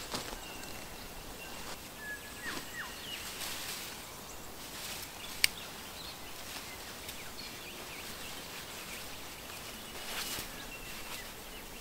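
Outdoor bush ambience: short, thin, high bird calls here and there over a steady high hiss, with soft rustles and one sharp click about five and a half seconds in.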